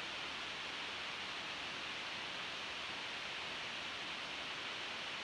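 Steady, even hiss with nothing else over it.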